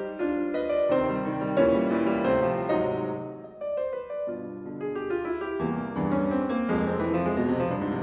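Solo grand piano playing a fast-moving classical passage, dipping briefly softer a little past three seconds in before the notes pick up again.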